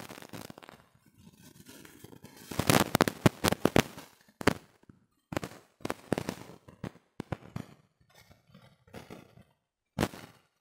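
Hand-stitching a shoe sole: needle and thread drawn through the rubber sole and leather upper, a crackling rasp in several bursts with short pauses between.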